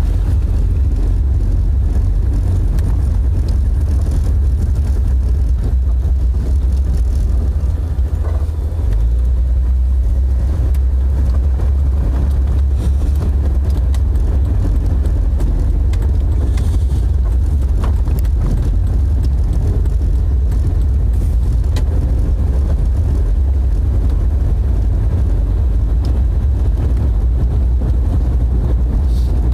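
Jeep driving along a road, a steady low drone of engine and road noise, with a brief dip about eight seconds in after which the drone settles at a slightly different pitch.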